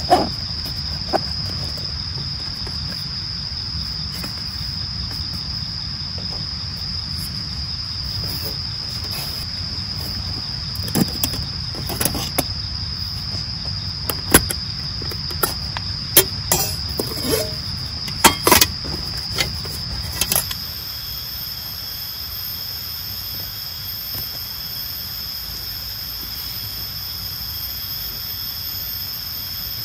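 Insects trilling steadily on one high pitch, with a run of clicks and metallic clinks from a small folding camp table and stove being packed up by hand through the middle. About two-thirds of the way through the handling stops and a second, higher insect chorus joins.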